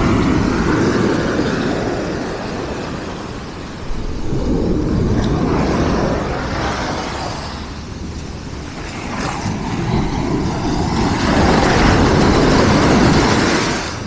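Black Sea surf breaking and washing up a pebble beach, the noise of the water swelling and falling away with each wave. It surges suddenly about four seconds in and is loudest from about nine to thirteen seconds.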